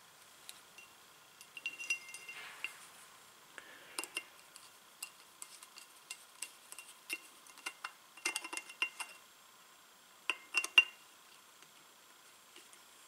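Light metallic clicks and clinks of a screwdriver working at small metal hose fittings on a lubrication manifold, with a brief ring from some taps. They come scattered and in several quick clusters, the sharpest near the end.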